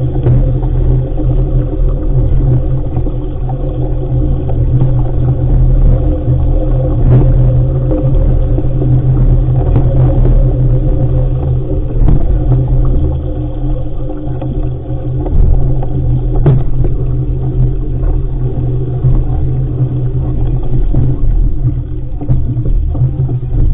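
Wind rumbling on the camera microphone while sailing: a loud, steady, low rumble with a few brief knocks.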